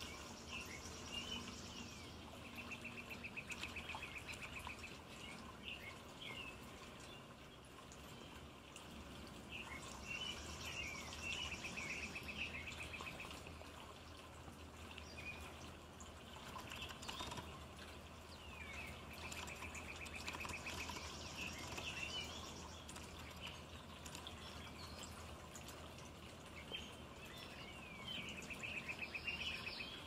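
Water trickling steadily from the spouts of a tiered metal cascade fountain, with songbirds singing behind it: scattered chirps and a short buzzy trill that comes back about every eight to nine seconds, four times.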